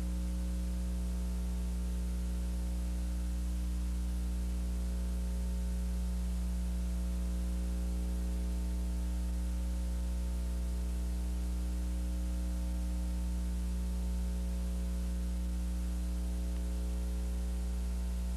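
Steady electrical mains hum with a stack of even overtones, under a constant hiss of tape noise, on an otherwise silent soundtrack.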